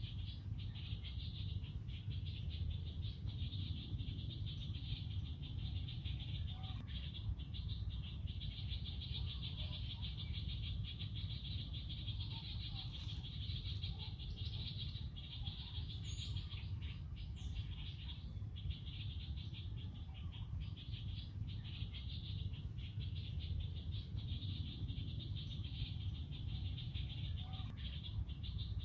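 A steady, high-pitched chorus of forest insects buzzing without a break, over a low rumble. A short, sharp high-pitched sound cuts in about halfway through.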